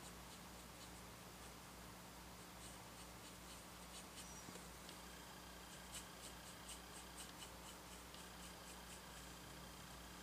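Faint scratching of a fine paintbrush stroking paint onto the painting in short repeated strokes, from a few seconds in, over a low steady hum.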